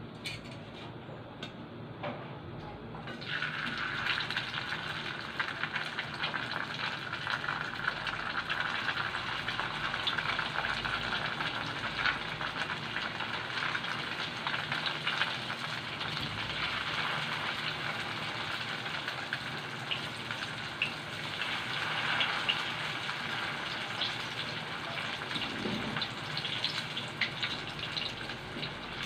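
Dynamite lumpia (chili-and-cheese spring rolls) deep-frying in hot oil in a frying pan: a steady sizzle that starts suddenly about three seconds in, as the rolls go into the oil, and carries on with many small crackles. A few light clicks come just before the sizzle starts.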